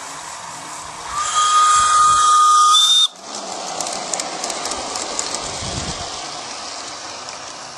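A model train's whistle: one loud, steady high note with a hiss under it, held for about two seconds and cut off suddenly. After it the train rolls on along the track with light clicking.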